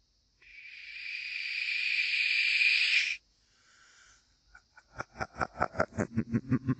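A man's long "shhh" hush, growing louder for about three seconds, followed about five seconds in by a low, rapid, pulsing chuckle.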